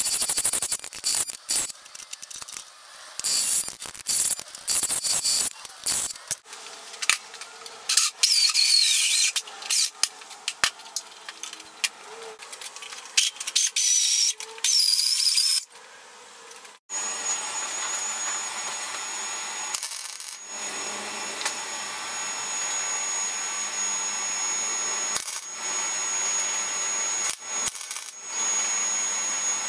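Drill press with a step drill bit cutting through steel flat bar: irregular cutting chatter and clicks. Then short tack welds with a wire-feed welder. About halfway through, a long continuous weld with a steady crackling hiss and a thin high whine.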